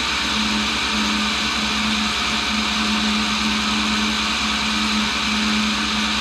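1942 Cincinnati tool and cutter grinder running steadily, its cup wheel grinding the tip of a brazed-carbide boring tool: an even motor hum under a steady grinding hiss.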